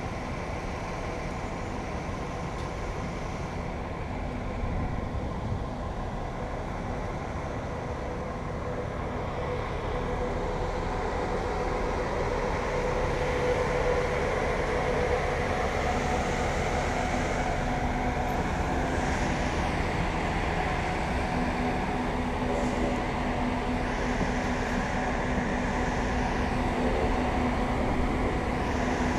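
Steady rumble of wind on an action camera's microphone from a bicycle riding along a paved promenade, with faint steady hums underneath. It grows louder about a third of the way in.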